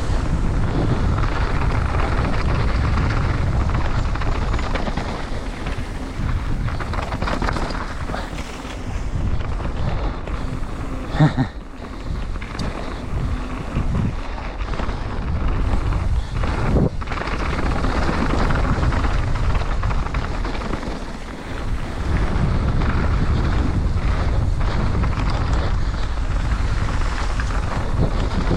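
Wind buffeting the microphone and the steady rumble of a mountain bike riding down a bike-park trail. A sharp knock comes about eleven seconds in, and a smaller one near seventeen seconds.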